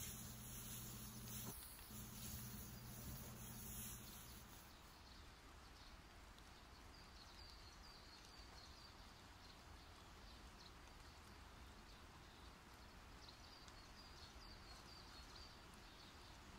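Near silence: faint background noise, with a low hum that stops about four seconds in and faint high chirps through the later part.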